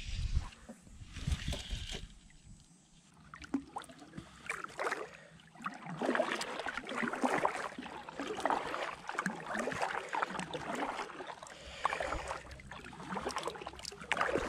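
Kayak paddle strokes: irregular splashing and dripping water, thickest from about four seconds in. There are low rumbles in the first two seconds.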